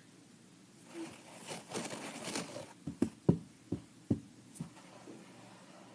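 Rustling and scraping handling noise, then about six short soft knocks or taps spaced over a second and a half.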